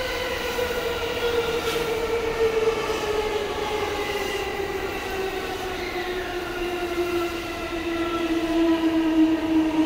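Electric commuter train arriving on the adjacent track, heard through an open train door: its traction motor whine falls slowly and steadily in pitch as it brakes toward a stop.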